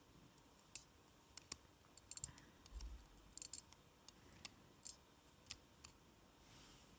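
Faint, scattered small metallic clicks and taps, about a dozen at irregular spacing, as the pins and springs of a disassembled DOM S cylinder lock are handled and picked out.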